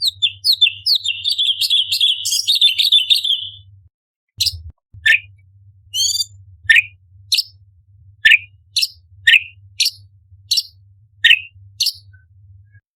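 A cucak cungkok leafbird singing: a fast chattering run of notes for about three seconds, then a string of separate sharp calls about one a second, several dropping in pitch. A faint low hum runs underneath.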